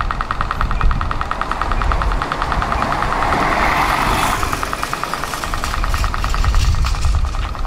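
City bus passing close by, its engine and tyres rising to a rushing peak about three to four seconds in and fading. Under it run a low traffic rumble and a rapid, steady ticking of about eight to ten ticks a second.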